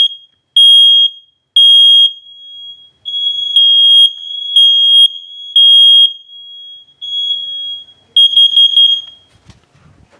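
Household smoke alarm's piezo sounder, sounding during a button test: a loud, shrill single-pitch beep in uneven bursts, with the test button kind of broken. The bursts run nearly together for a while, stutter rapidly near the end and cut off about nine seconds in.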